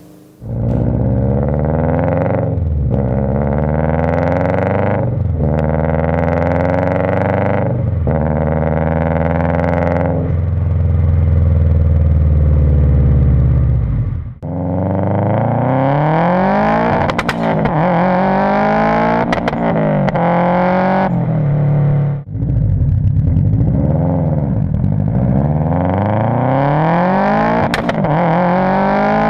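Subaru Impreza GC8's 2-litre turbocharged boxer engine, breathing through a 3-inch custom exhaust with a metal cat, accelerating hard through the gears. The pitch climbs and then drops at each upshift, with a few sharp cracks in the second half.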